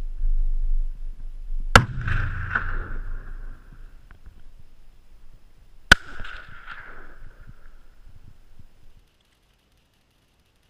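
Two shots from a Remington 700 MLR bolt-action rifle in .338 Lapua Magnum, about four seconds apart. Each is a sharp crack followed by echoes that die away over one to two seconds.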